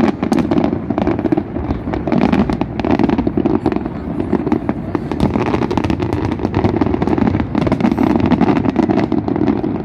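Aerial fireworks display going off in a loud, dense, continuous barrage of bangs and crackles.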